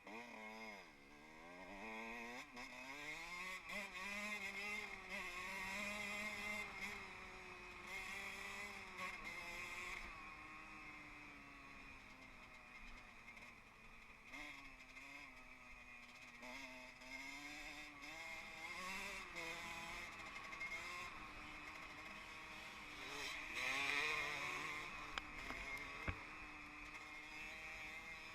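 Kawasaki KX two-stroke motocross bike engine revving up and down through the gears, its pitch repeatedly climbing and dropping, loudest about 24 seconds in.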